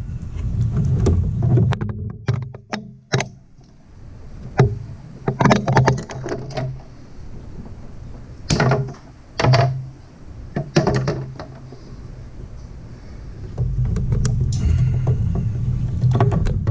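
Handling noise of thick insulated wires being pushed and tucked into an electrical panel enclosure: scattered clicks and knocks of wire and hands against the box, over a low rumble that fades in the middle and returns near the end.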